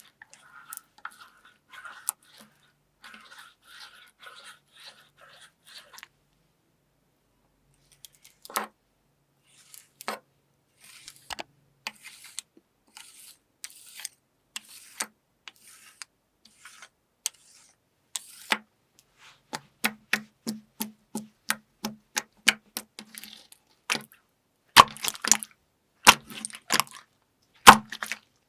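Soft crackles and clicks of a brittle material being pressed, turning into a fast run of crisp cracks about two-thirds in, with the loudest snaps near the end.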